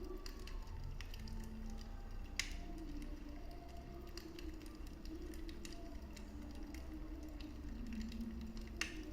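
Wood fire burning in a fireplace: irregular crackling with two louder pops, one about two and a half seconds in and one near the end, over a steady low rumble.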